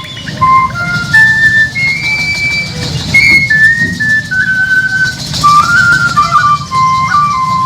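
Music for a traditional Amazonian carnival dance: a high flute plays a melody of held and stepping notes over a drum and a rattle.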